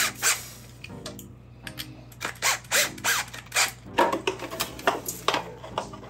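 Irregular clicks, knocks and rustles of a refrigerator fan motor assembly being handled and fitted: its plastic housing, metal bracket and wiring harness worked by hand.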